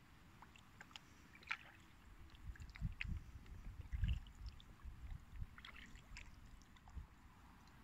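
Faint paddling from an inflatable kayak on calm water: scattered light drips and trickles from the paddle blades, with a few soft low knocks against the boat.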